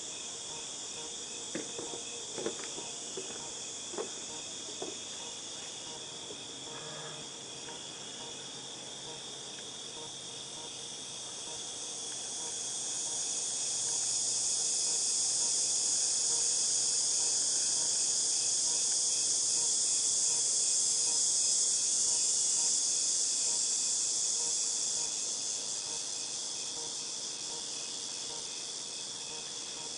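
Chorus of cicadas buzzing, a high shrill drone that swells louder a little before halfway, holds, and fades back toward the end. A few light clicks in the first few seconds.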